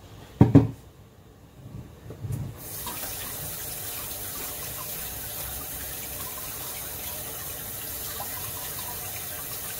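Two sharp knocks about half a second in, then a kitchen tap turns on about two and a half seconds in and water runs steadily into the sink.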